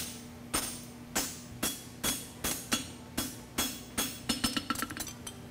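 Hand hammer striking a steel horseshoe on an anvil, ringing blows about two a second, with a quick run of lighter taps about four and a half seconds in.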